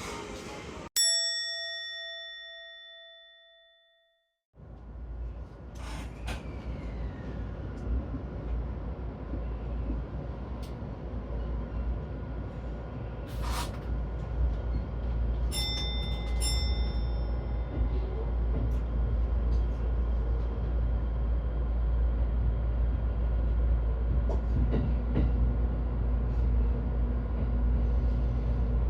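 A single bell-like ding about a second in, ringing and fading over a few seconds. After a moment of silence, the steady low rumble of a train running, heard from inside the carriage, with scattered clicks.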